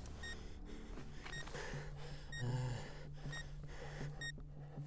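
A bomb's countdown timer beeping, one short high beep about once a second. Under it a low steady hum comes in about a second in, and a short breath is heard near the middle.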